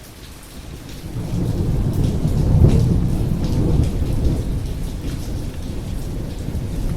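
Thunder rumbling in heavy rain: a low roll swells in about a second in, peaks a little later and then slowly eases, over the steady patter of rain.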